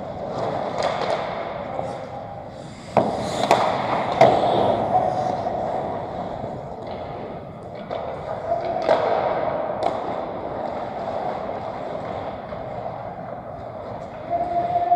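Pick-up ice hockey on a rink: skate blades scraping across the ice, with sharp clacks of sticks and puck about three to four seconds in and again near ten seconds, and players' voices in the background.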